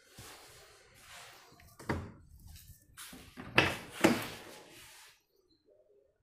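Car doors of a Suzuki Cultus being handled: some rustling, then three clunks, the last two loudest and about half a second apart.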